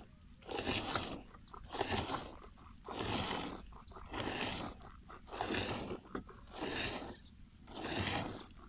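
Hand-milking into a steel bucket: squirts of milk hiss into the frothy milk already in the bucket, one about every second in a regular rhythm.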